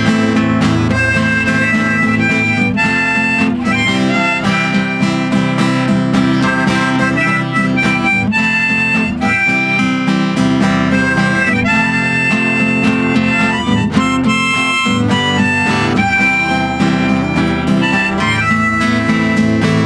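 Harmonica playing a melody in long held notes over strummed acoustic guitar, an instrumental break with no singing.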